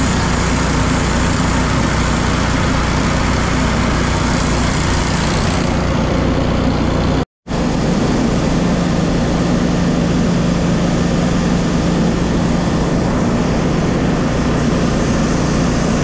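Steady engine drone with the rushing hiss of shelled corn as a Batco belt conveyor runs at full flow, unloading a grain bin into a trailer. The sound drops out for a split second about seven seconds in.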